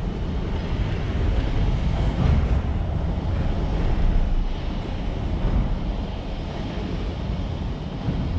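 Wind buffeting the microphone: a low, uneven rumble that swells and falls in gusts.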